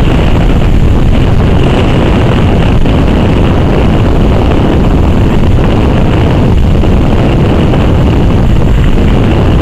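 Loud, steady low rumble of strong wind buffeting the camera's microphone.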